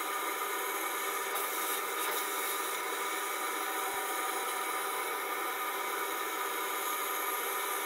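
Twin-head laser cutter running as it cuts 6 mm birch plywood: a steady hiss of air blowing from the cutting heads' air-assist nozzles together with the machine's fans, with several faint steady hums underneath.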